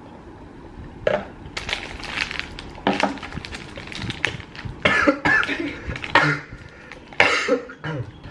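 A person coughing in repeated fits after choking while eating.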